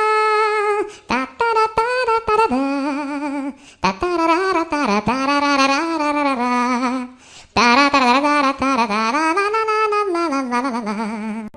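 Ringtone music: a single lead melody with vibrato and sliding notes, in phrases broken by short gaps about four and seven and a half seconds in.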